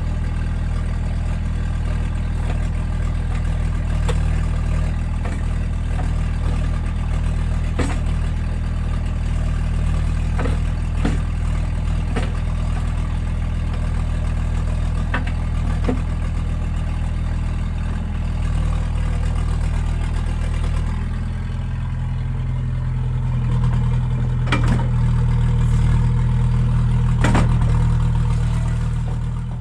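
Case CX75 SR mini excavator's diesel engine running steadily, with scattered sharp metallic clanks. About 21 seconds in, the engine note steps up and grows louder.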